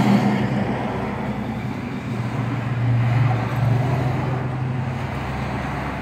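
Low, steady motor-vehicle engine hum that swells about three seconds in and then eases off.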